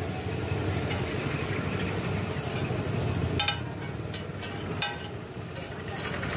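Chow mein noodles being stir-fried on a large flat iron griddle: a steady sizzle over a low rumble that eases about halfway through. Metal utensils clink against the griddle four times in the second half.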